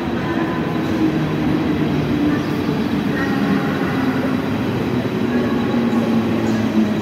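Mumbai suburban EMU local train running along a station platform: a steady rumble of the moving carriages, with a low electric hum that slowly drops in pitch.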